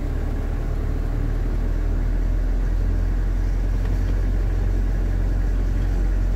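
Truck engine running, heard from inside the cab at low speed: a steady low drone that gets a little louder over the first couple of seconds.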